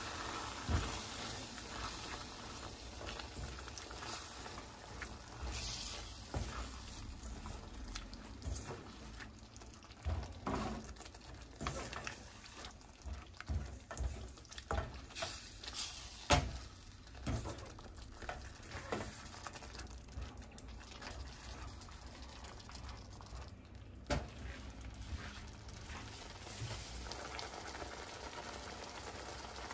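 Thick tomato curry sauce sizzling and bubbling in a hot pan while a spatula stirs it, scraping and knocking against the pan in irregular strokes, most often through the middle stretch.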